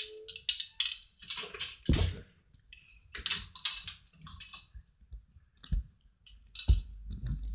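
Irregular rustling and clicking with a couple of dull thumps: handling noise from a handheld phone being moved about.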